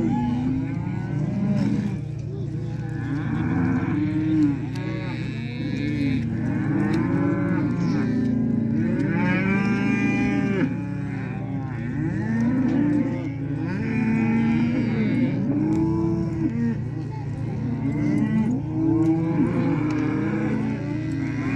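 A herd of beef cows and calves bawling, many overlapping moos of different pitches one after another, over a steady low rumble.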